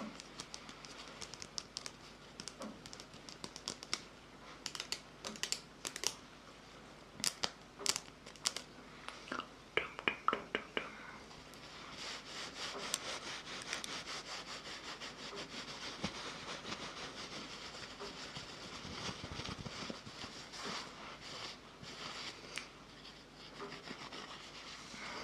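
Close-miked ASMR mouth sounds: a quick run of sharp wet clicks and smacks, then from about twelve seconds in a steady soft rustling with scattered clicks.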